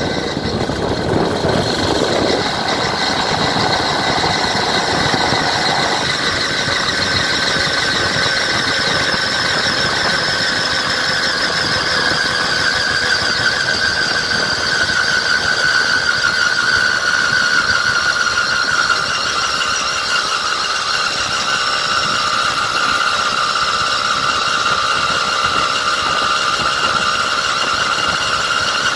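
Fat bike riding along asphalt: a steady high whine that slowly drops in pitch partway through, over a constant rush of wind and road noise.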